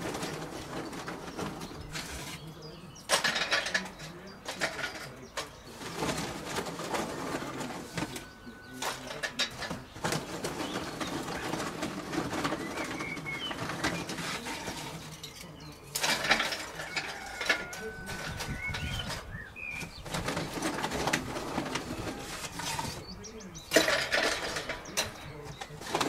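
Rustling and rummaging in a sack beside a kettle barbecue, in irregular bursts, the loudest about three, sixteen and twenty-four seconds in. Birds call now and then in the background.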